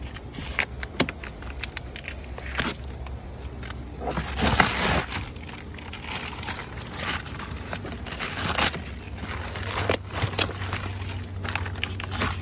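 Protective paper and masking tape being peeled off a new car's inner door panel and crumpled by hand: irregular crinkling and crackling, with louder rustling bursts about five and nine seconds in.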